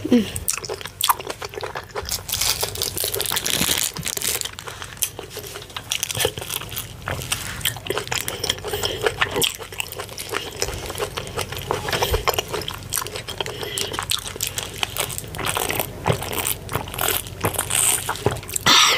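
Close-miked eating sounds: steady wet chewing and mouth smacking of fufu with ogbono and ewedu soup, a continuous run of small sticky clicks.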